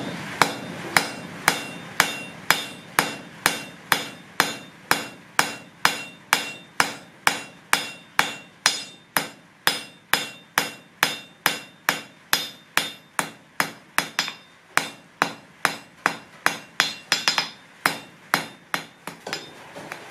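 Hand hammer striking a red-hot steel bar on an anvil, forging out a leaf: steady blows about two a second, each with a short metallic ring, with a few quicker blows near the end.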